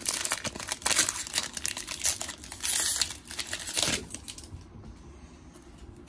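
Foil trading-card pack wrapper crinkling as it is opened by hand and the cards are pulled out. The crinkling dies away about four seconds in.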